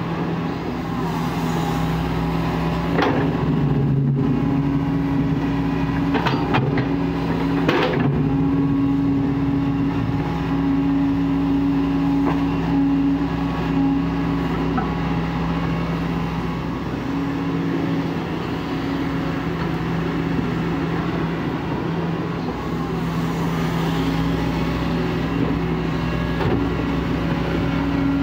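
Diesel engine of a Kobelco SK140 hydraulic excavator running steadily under working load while it digs and loads earth. Its pitch shifts slightly now and then, and a few sharp knocks come in the first eight seconds.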